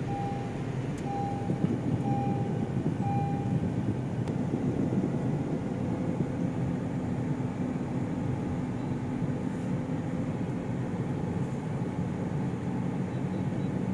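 Steady road and engine noise inside a moving car. A short beep repeats about once a second for the first few seconds.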